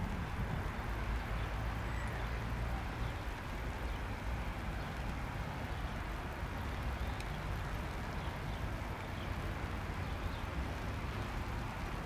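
Airbus A319 jet engines running, a steady low rumble with no rise or fall in pitch.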